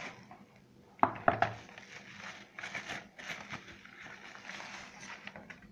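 Clear plastic bag and foam wrapping crinkling and rustling as they are handled by hand, with a few sharp knocks about a second in.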